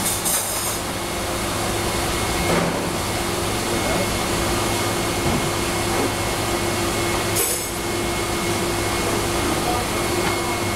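Steady fan-like drone of kitchen ventilation with a low hum, broken by two brief hisses, one at the start and one about seven seconds in.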